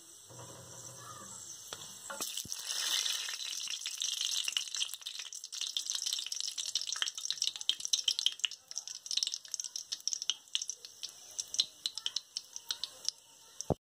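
Whole spices (bay leaf, cinnamon stick, cloves, black cardamom) sizzling and crackling in hot oil in a kadhai as they release their flavour into the oil. A steady hiss with many quick pops starts about two seconds in, and the pops thin out near the end.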